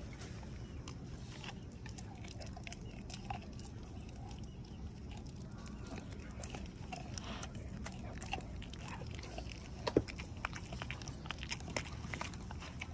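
An American Pit Bull Terrier chewing and gnawing a chunk of raw meat held out to it, with irregular clicks of its teeth and one sharper snap about ten seconds in.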